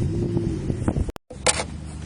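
An engine revving up and down, its pitch rising and falling, with a brief dropout and a sharp click a little after the middle.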